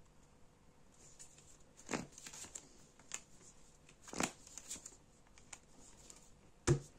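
Fortune-telling cards being handled: faint rustling and sliding of cards, with a sharper tap near the end as a card is set down.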